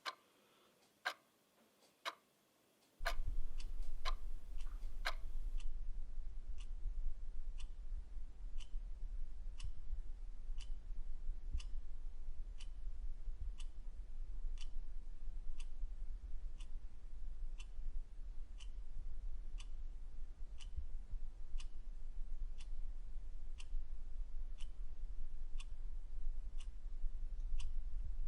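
Clock ticking, sharp single ticks about once a second. About three seconds in, a steady low hum comes in underneath; from about six seconds the ticks come quicker, a little over half a second apart.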